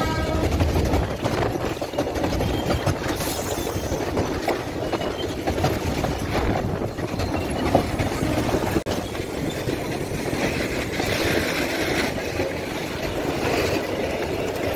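Freight train of Indian Railways BOBRNL hopper wagons rolling past close by: a steady rumble and rattle of the wheels on the rails.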